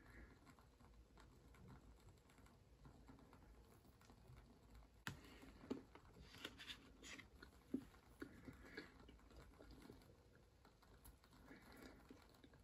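Near silence: room tone with a few faint scattered clicks and taps.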